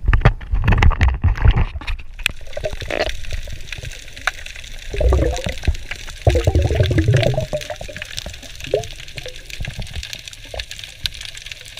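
Water splashing as a freediver duck-dives from the surface, then muffled underwater sound: a fine steady crackle with two bursts of gurgling water and bubbles partway through.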